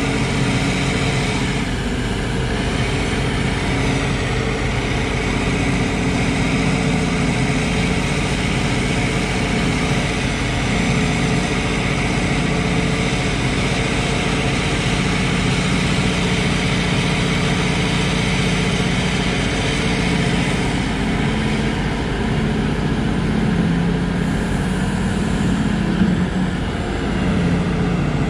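Heavy diesel engines of a Liebherr mining excavator and a Komatsu 730E haul truck running steadily as the excavator digs and swings its bucket, a continuous low drone that shifts a little in pitch as the machine works.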